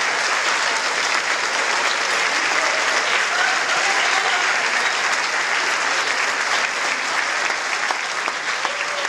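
Large audience applauding steadily, with a few voices faintly heard through the clapping.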